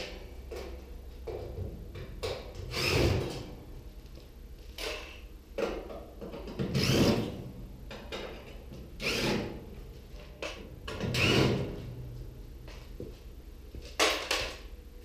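Sheet-metal stove parts sliding and scraping against each other in four drawn-out strokes, with a couple of sharp metal knocks near the end.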